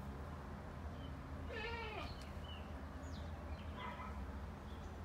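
An animal call: one wavering cry that falls in pitch about one and a half seconds in, then a shorter, fainter call near four seconds.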